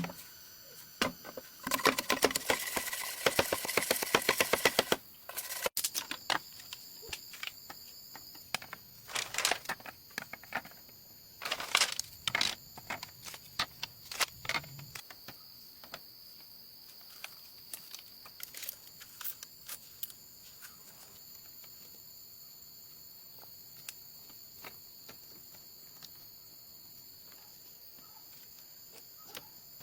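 Steady high insect drone, such as crickets or cicadas, with scattered sharp clicks and knocks, and a busy rattle of clicks in the first five seconds.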